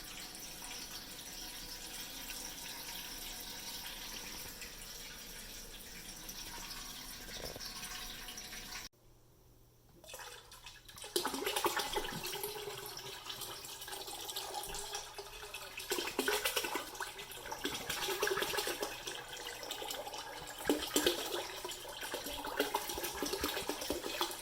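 Liquid poured in a stream and splashing into a container. There is a brief drop-out about nine seconds in, and the pouring is louder and more uneven after it.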